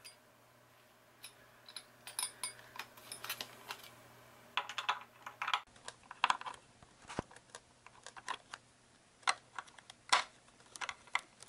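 Irregular light metal clicks and taps of an Allen key working the large Allen screws that hold a self-balancing scooter's wheel on, the clicks coming thicker in the second half.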